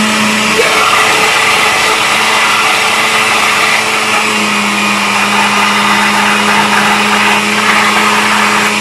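Oster countertop blender running steadily, blending a full glass jar of thick pumpkin pie filling while dissolved gelatin is poured in through the lid opening.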